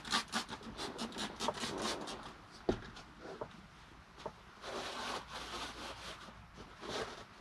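Floor being wiped down by hand with a towel: brisk back-and-forth rubbing strokes about four or five a second for the first couple of seconds. They then slow into scattered, uneven wipes, with a few light knocks in between.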